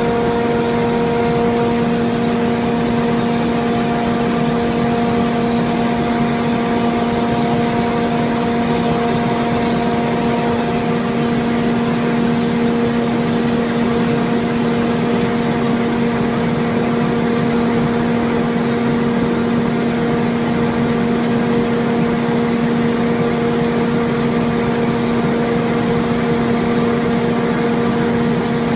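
Cummins KTA50-G8 16-cylinder diesel generator set running at steady speed: a loud, even drone with a few held tones over dense machine noise. One of the higher tones fades out about ten seconds in.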